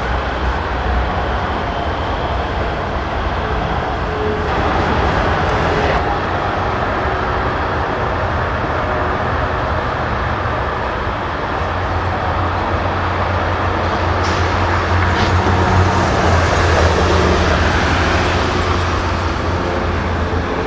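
A train passing with a steady rumble and a low engine drone, growing louder in the second half.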